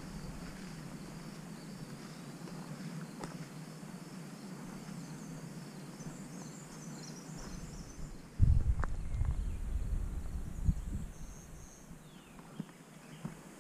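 Insects trilling steadily in summer woodland, with a few faint chirps. About eight seconds in, a low rumble on the microphone comes in suddenly and fades over a few seconds.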